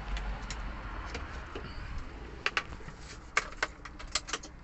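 Sharp clicks and taps from hands working at a truck's dashboard fuse box as a wire-jumpered meter fuse is pushed back in. There are a few scattered clicks, then a quick run of about six in the second half, over a low steady hum.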